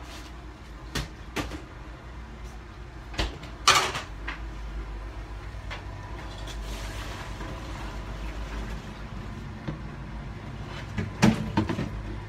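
Knocks and clatter of a refrigerator being rummaged and its door shut, the loudest thud about four seconds in, over a steady low hum. Two more knocks come near the end.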